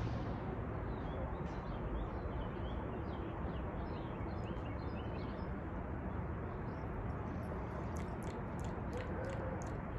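Small birds chirping and twittering against a steady outdoor background noise, with a run of quick high ticks near the end.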